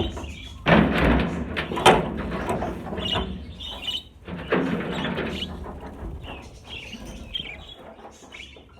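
A flock of budgerigars chirping, with two loud stretches of rustling and knocking, about a second in and again past four seconds.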